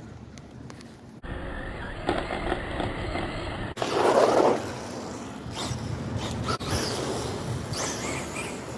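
Traxxas Bandit VXL RC buggy driving, its Velineon brushless motor and tires making a rolling, scuffing noise, with a louder swell about four seconds in. The sound changes abruptly about a second in and again near four seconds.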